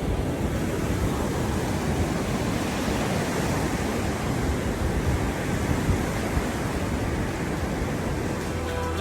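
Ocean surf washing on the shore, a steady rushing noise with wind on the microphone. Music comes in near the end.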